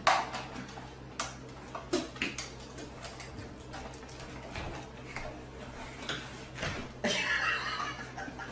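A dog squeezing through a narrow gap beside a door: scattered knocks and clicks, then a stretch of scuffling near the end as its body slides through.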